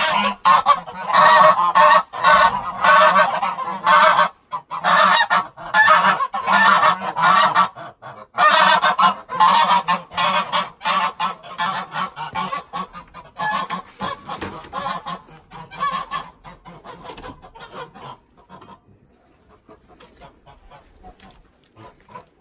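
Domestic geese honking loudly and repeatedly in a rapid run of calls, which thins out and fades over the last few seconds.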